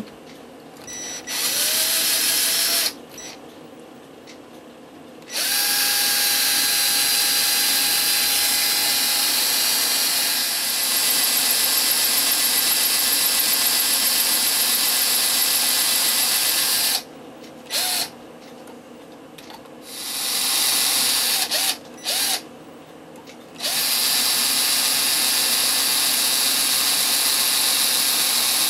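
Small handheld rotary tool spinning a 1/8-inch concrete drill bit into a cast-concrete statue's leg, giving a high-pitched motor whine. It starts and stops about five times in short runs, with one long stretch of drilling of about twelve seconds.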